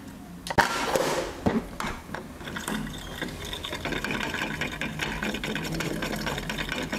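A few sharp clicks as the plastic and magnet pieces are handled. Then, from a few seconds in, a steady, rapid mechanical ticking.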